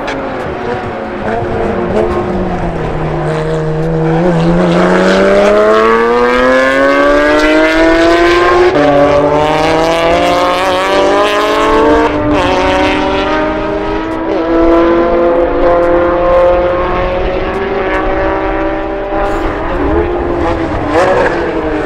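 Race car engine on track, heard from trackside: its pitch falls as it slows for a corner, then climbs hard under acceleration, dropping back sharply at gear upshifts about nine and twelve seconds in before holding at speed.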